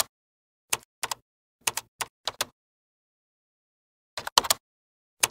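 Typing sound effect: short clusters of keyboard keystroke clicks, a few keys at a time, with a pause of over a second and a half near the middle.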